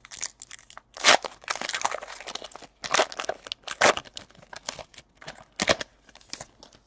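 Foil wrapper of a 2017 Panini Elite Extra Edition baseball card pack being torn open and crinkled by hand: an irregular run of sharp crackles and rustles.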